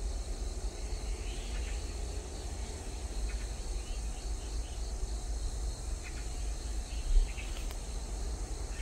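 Steady high-pitched drone of insects, with a few faint, short, scratchy calls of azure-winged magpies scattered through it over a low rumble. A single thump about seven seconds in.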